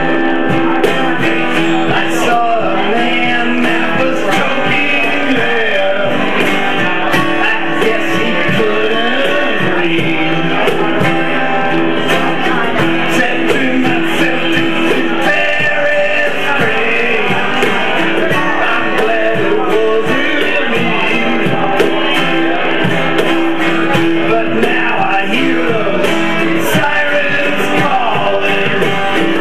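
Live acoustic guitar strumming with a man singing into a microphone, a hand drum playing along.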